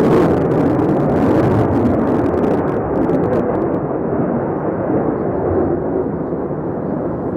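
Jet noise of a Sukhoi Su-35 fighter's twin AL-41F1S (117S) turbofans in flight: a loud, steady rush with crackling in the first few seconds, easing slightly toward the end.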